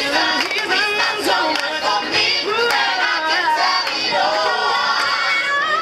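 A gospel-style choir singing in chorus, with a woman's lead voice through a microphone over the group, and hand claps keeping time.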